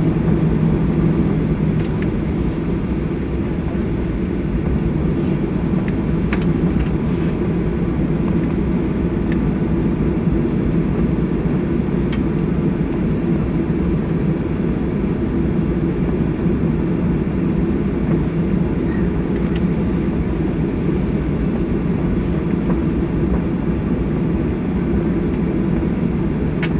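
Steady low rumble of a jet airliner's engines heard inside the cabin while the plane taxis, with a few faint ticks.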